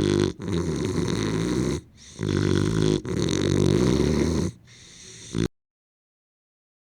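English bulldog snoring: about four long, loud rattling breaths with short pauses between them, then a quieter breath, cutting off abruptly into silence about five and a half seconds in.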